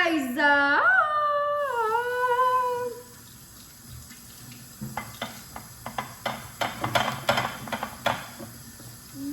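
A dog howls in one long call with a sliding, wavering pitch that ends about three seconds in. After a pause comes a run of light clicks and clatter with some water, as at a kitchen sink.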